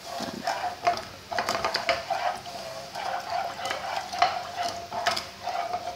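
A spatula stirring a creamy white sauce in a frying pan, with irregular scraping strokes and light knocks against the pan.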